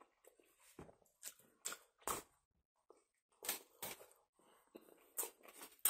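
A person chewing a mouthful of kebab sandwich: faint, irregular soft clicks and smacks of the mouth, a few at a time with short gaps between.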